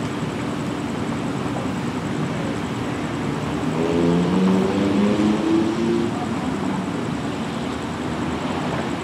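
Steady drone of an idling Amtrak passenger train standing at the station, its diesel engine and generators running. About four seconds in, a louder wavering, pitched sound rises over the drone for about two seconds.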